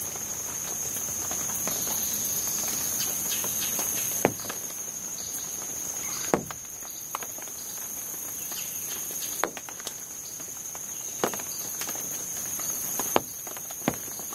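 Steady high-pitched insect drone, with water drops pattering irregularly on broad leaves and a handful of louder drips close by.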